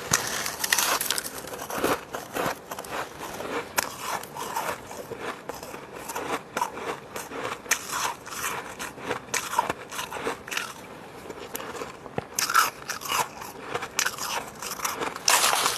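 Close-miked biting and chewing of soft, fluffy freezer frost: a steady run of fine crunches and crackles, with louder bites near the start and again near the end.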